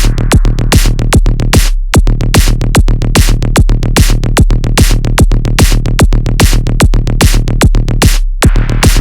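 Electronic dance music track: a fast, even drum-machine beat over a sustained deep bass. The beat drops out briefly, leaving only the bass, about two seconds in and again near the end.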